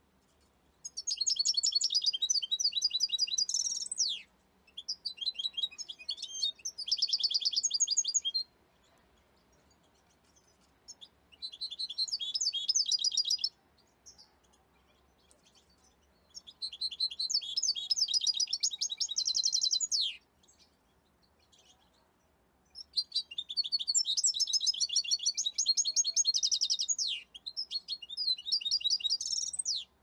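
Male European goldfinch singing: about six phrases of rapid twittering trills, each a few seconds long with short pauses between, several ending in a quick downward sweep.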